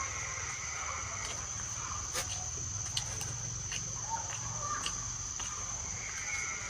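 Steady high-pitched insect drone, with a few scattered sharp clicks and a low rumble underneath.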